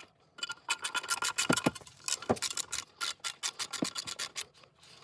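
A wrench clicking in quick runs as it snugs down the bolts holding a skid plate on a pipe-inspection crawler camera, with a few knocks of metal on metal in between.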